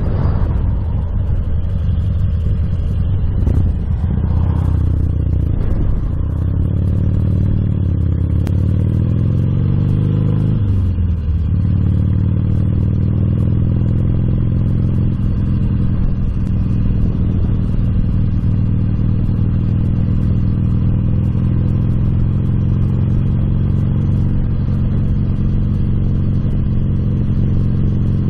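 Motorcycle engine running while being ridden, its note rising and falling several times in the first dozen seconds, then holding steady.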